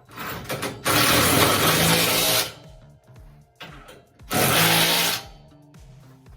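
Handheld power tool running in two loud bursts, about a second and a half and then under a second, with faint background music underneath.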